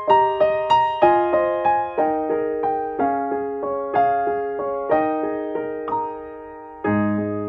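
Background piano music. It is a slow melody of struck notes, each fading away, with deeper notes coming in near the end.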